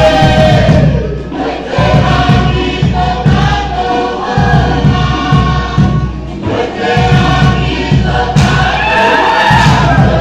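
A group singing a Pukapukan song together in chorus, with strummed string accompaniment over a steady beat.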